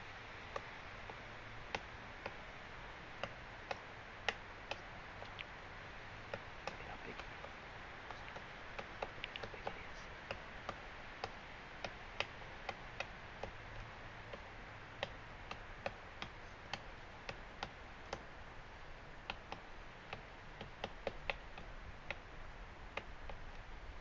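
Pileated woodpecker pecking at the dead wood of a broken snag: irregular single sharp taps, about one or two a second, some louder than others, over a faint steady hiss.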